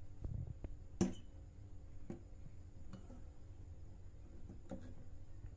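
A few light clicks and knocks from a hand handling a treble compression driver and its plastic horn on a table, the sharpest click about a second in.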